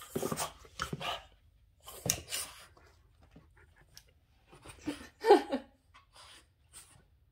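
A Boston terrier making short bursts of noise as it lunges at, paws and mouths a window-cleaning squeegee; the dog is upset at the tool. The loudest burst comes about five seconds in.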